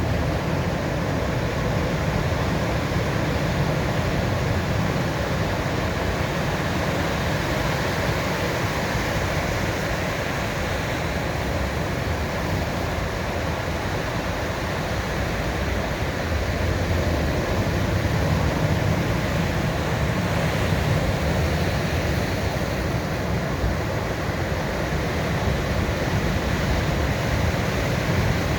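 Ocean surf rolling onto a beach: a steady rushing wash over a deep rumble, easing a little near the middle and swelling again after.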